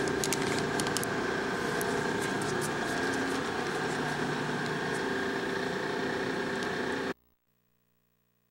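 Steady mechanical hum with a faint whine, with a few light clicks in the first second; it cuts off suddenly about seven seconds in.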